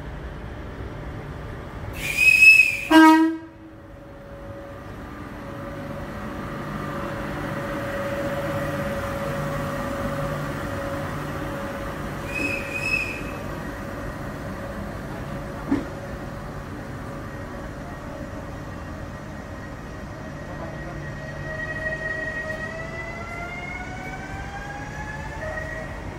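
Renfe Rodalies Civia electric commuter train sounding two short horn blasts about two seconds in and two fainter ones around twelve seconds, with a steady electric whine as it runs along the platform. Near the end its traction motor whine climbs in pitch as it accelerates.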